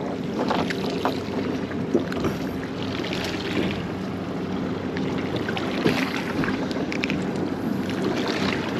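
A boat engine running steadily, with wind on the microphone. A few small clicks and knocks come through as the fish is handled.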